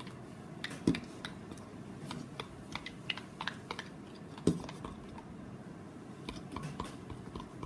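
A utensil clicking and tapping against a bowl while stirring white glue with blue acrylic paint, with two louder knocks, about a second in and about four and a half seconds in.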